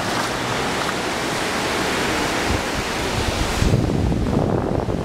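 Shallow surf washing over the sand at the water's edge, a steady hiss, with wind buffeting the microphone. Near the end the hiss thins and the low wind rumble grows stronger.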